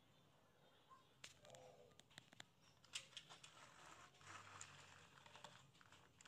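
Faint handling noises, scattered light clicks and a soft rustle, from a plastic toy truck being set down and moved on a wooden plank.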